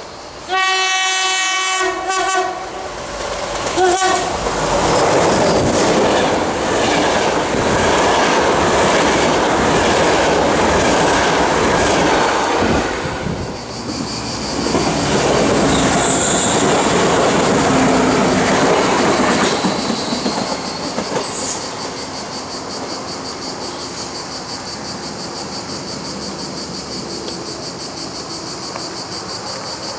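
Passenger train horn sounds one long blast and then a short one as the train approaches, followed by the loud rumble and wheel clatter of the train passing close by. In the last third, steady shrill buzzing of cicadas.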